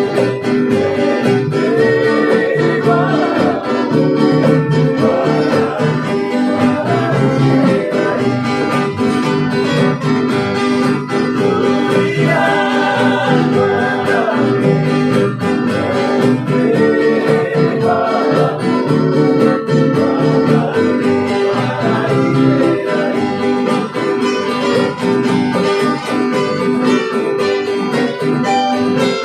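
A small acoustic band playing and singing together: strummed acoustic guitars, a ukulele and a hand drum under group vocals.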